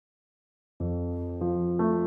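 Calm electric-piano music starting a little under a second in, with held notes and new notes added twice.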